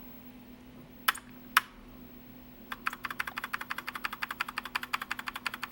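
Commodore SX-64 keyboard keys being pressed during a key test: two single clicks about a second in, then a fast, even run of key taps, about ten a second, from about halfway on. A faint steady hum runs underneath.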